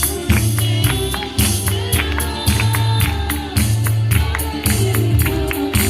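Gospel worship music: a steady beat with tambourine and bass, with voices singing.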